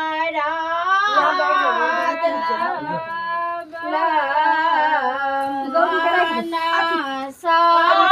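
Several women singing a traditional Maithili wedding song (chumavan geet) unaccompanied, in long wavering held notes, with short breaks between lines about four seconds in and near the end.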